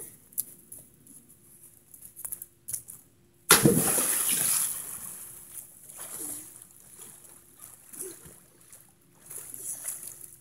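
A big splash about three and a half seconds in as a person jumps into a swimming pool, dying away into water sloshing and trickling.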